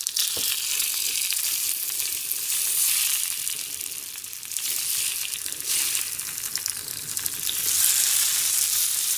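Eggs sizzling in hot oil in an iron frying pan, with a slotted turner scraping and breaking them up against the pan now and then.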